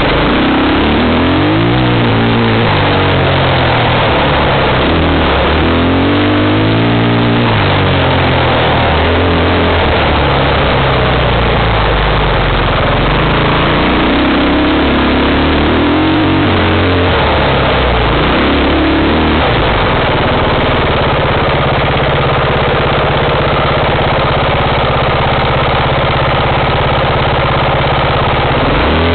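Off-road vehicle's engine revving up and down over and over as it is ridden along a trail, settling to a steadier note for the last several seconds, under a constant rushing noise.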